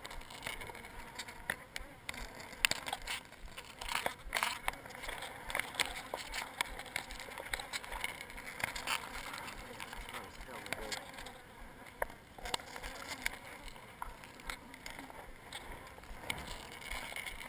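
Honeybees buzzing around an exposed comb of their colony, with scattered sharp clicks and knocks from handling close to the microphone.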